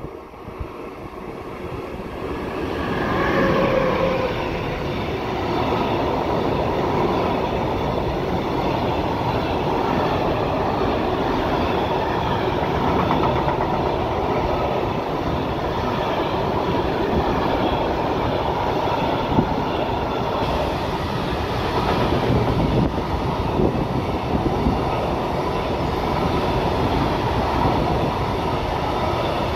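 A train running past on the track, the noise of wheels on rails building over the first few seconds as it arrives and then holding steady as it keeps rolling by.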